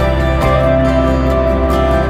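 Background music: a gentle new-age style track with held tones and a light, even beat.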